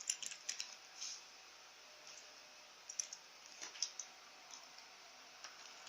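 Light, sharp plastic clicks and taps, coming in small irregular clusters, as small Kinder Surprise toy pieces and their plastic capsule are handled and pushed together.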